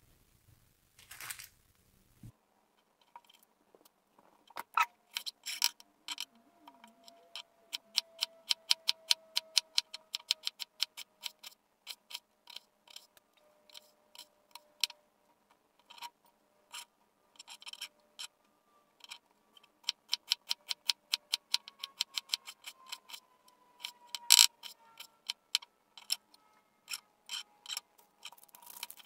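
Chef's knife dicing an onion on a plastic cutting board: runs of quick, sharp taps, about four or five a second at their fastest, with pauses between runs. A single louder knock comes a few seconds before the end.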